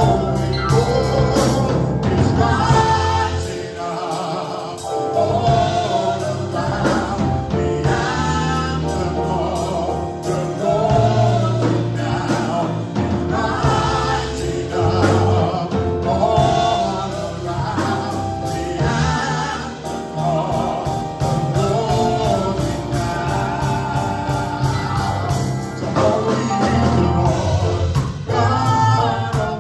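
Gospel praise and worship music: a band playing with singers or a choir.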